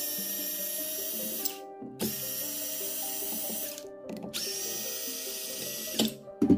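Cordless electric screwdriver running in three bursts of about a second and a half to two seconds each, backing screws out of an angle grinder's gear-head plate.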